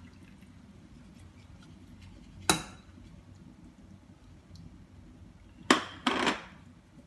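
Kitchenware clinking: a ceramic bowl and a stainless steel strainer knocking against a steel pot, one sharp clink about two and a half seconds in and two more close together near the end.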